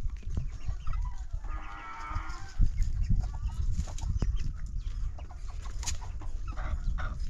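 A farm animal calls once, about a second long, starting about a second and a half in, with a weaker call near the end, over steady low rumble and scattered clicks and knocks.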